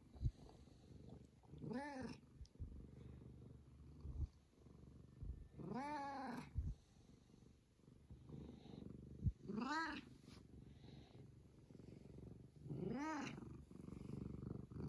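Domestic cat purring steadily as it is stroked, with four short meows that rise and fall in pitch, about one every four seconds. Two brief knocks, one near the start and one in the middle, are the loudest sounds.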